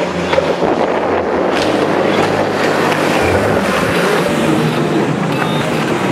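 Racing jet ski engine running at speed as it sweeps past close by, with the rush of its spray.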